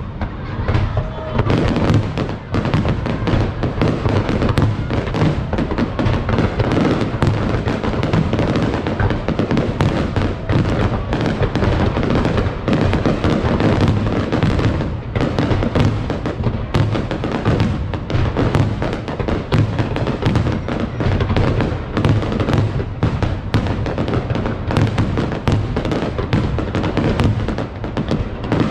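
Fireworks display with many bangs and crackles in rapid, unbroken succession, over music.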